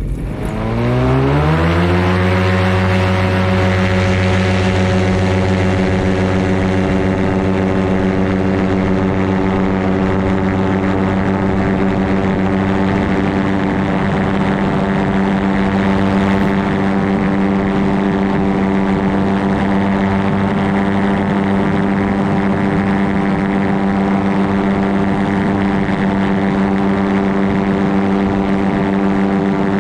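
Aerolite 103 ultralight's engine and pusher propeller throttled up to full power for takeoff. The pitch rises over the first two seconds, then holds steady through the takeoff roll and climb.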